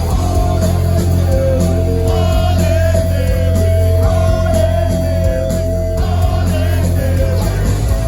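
Punk rock band playing live, loud and bass-heavy, with electric guitars and a singing voice over a long held note that stops about six seconds in.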